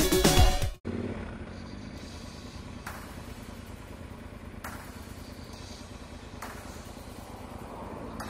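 A loud channel-logo sting cuts off abruptly under a second in. It gives way to a motorcycle running steadily at low speed, heard through a helmet camera with engine rumble and road noise.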